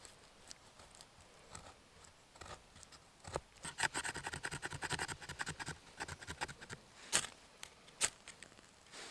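Knife blade scraping and shaving at a split stick of firewood, with a fast run of rasping strokes through the middle. Near the end a ferro rod is struck sharply twice, throwing sparks to light the shavings.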